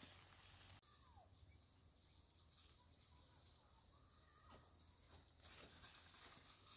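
Near silence: faint field ambience with a thin, steady high insect drone and a few faint short chirps; the background changes abruptly about a second in.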